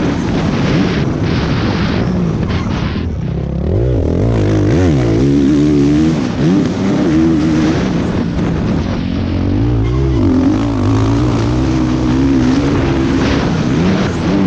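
Motocross bike engine at racing speed, its revs rising and falling over and over as the rider shifts, rolls off and gets back on the throttle, with rushing noise over it.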